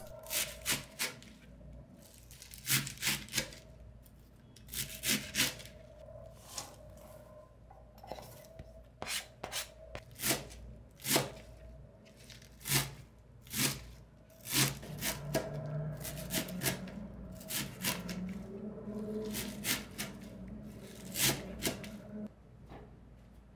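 Chef's knife chopping a bunch of garlic chives on a plastic cutting board: sharp, irregular knocks of the blade on the board, often two or three in quick succession with short pauses between.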